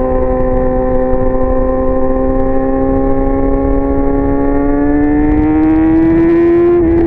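A 2019 Yamaha R6's inline-four engine, heard through a Leo Vince aftermarket exhaust, holds a steady high-pitched note at constant throttle. Over the last couple of seconds its pitch climbs slowly, and it breaks briefly near the end.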